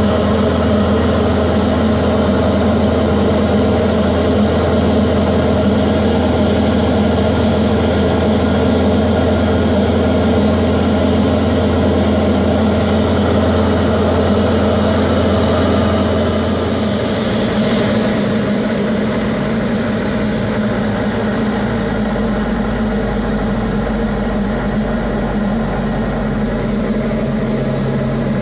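Cabin drone of a Diamond DA40's four-cylinder Lycoming IO-360 engine and propeller in flight, a steady hum with rushing air over it. The engine note drops lower about two-thirds of the way through.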